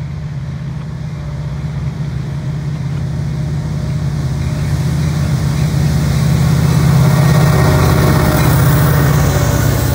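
CN SD75I diesel-electric locomotive, with its 16-cylinder EMD 710 engine, approaching and passing at track speed at the head of a freight train. Its low engine drone grows steadily louder and peaks as the locomotive goes by about seven seconds in. Wheel and rail noise rises as the freight cars follow.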